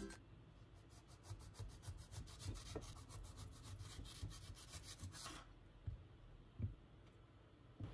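Kitchen knife sawing through a mango with fast, faint rasping strokes for about five seconds, then a few soft knocks of the knife and fruit on a wooden cutting board near the end.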